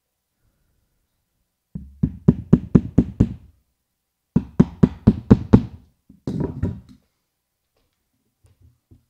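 Hammer striking a small nail through a paper square into a table top: two quick runs of about six blows each, about four a second, then a shorter, rougher knocking.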